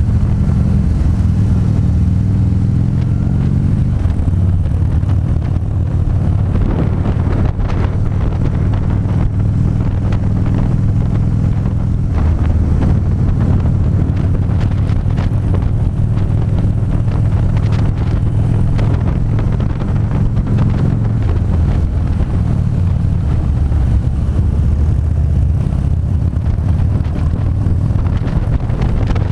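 Harley-Davidson V-twin motorcycle engine running under way, its note shifting in pitch a few times, with wind noise buffeting the onboard camera's microphone.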